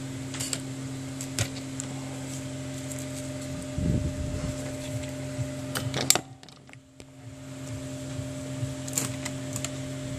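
Steady electrical hum with a few light clicks and taps from small phone parts being handled on a workbench. The hum drops out for about a second a little after six seconds, then comes back.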